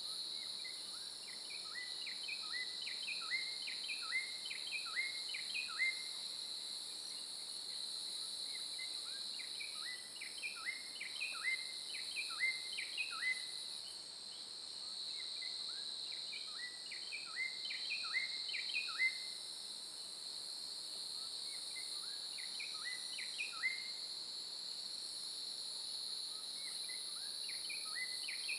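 Steady high-pitched insect drone, with a bird singing a run of quick, rising notes that comes back every few seconds.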